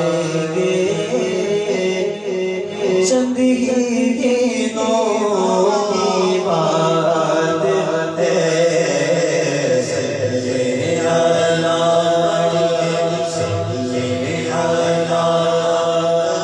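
Male voices chanting a naat in long held notes over a steady low drone.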